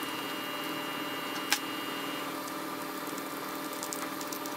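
Steady workshop hum with a single sharp click about one and a half seconds in and a few faint ticks later, from the air cleaner housing and a small wrench being handled on a small engine.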